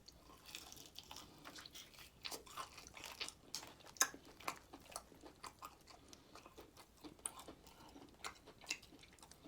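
Close-up sounds of a person chewing and biting into fried chicken: soft, irregular crunches and wet mouth clicks, the sharpest crunch about four seconds in.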